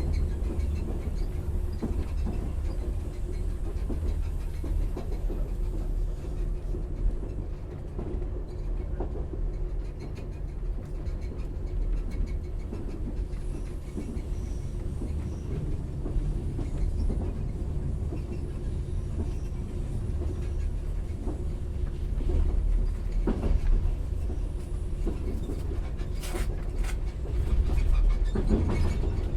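Subway train running: a steady low rumble with a constant hum, and a few sharp metallic noises near the end.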